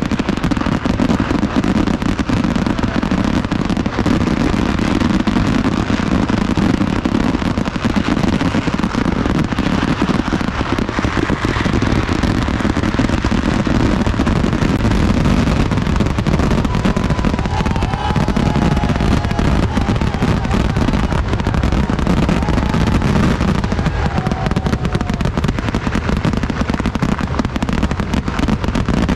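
Festival fireworks going off in a dense, unbroken barrage of bangs and crackling over a heavy low rumble.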